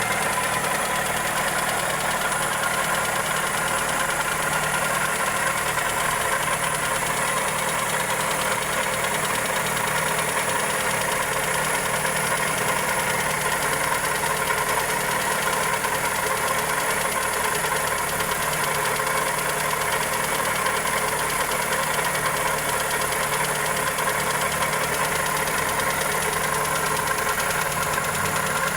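Toyota 2E four-cylinder engine idling steadily with a fast ticking knock. The cause is put down to either the valvetrain or a connecting rod.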